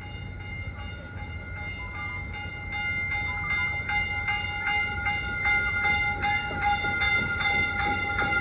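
Caltrain Stadler KISS electric multiple-unit train approaching along the track, its low rumble growing steadily louder. A bell rings over it in quick, even strokes, several a second.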